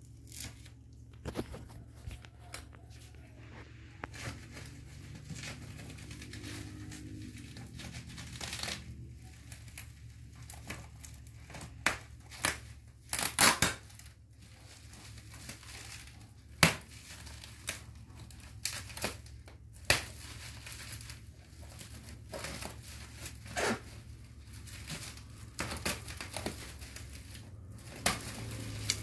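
Bubble wrap around a cardboard TV box crinkling and rustling as the box is handled, with scattered sharp crackles, the loudest about halfway through.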